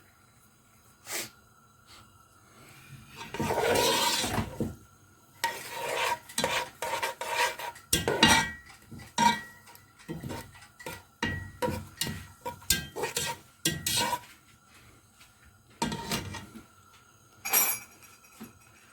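A spoon scraping and clinking against a large cooking pot while stirring sesame seeds in hot oil, in irregular bursts of short scrapes and knocks with pauses between them.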